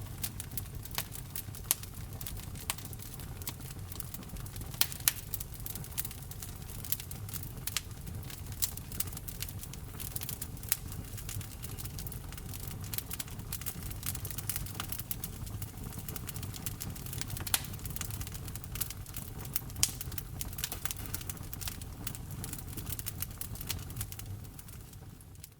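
Wood fire burning in a fireplace, with frequent irregular crackles and sharp pops over a low steady rumble. The sound fades out near the end.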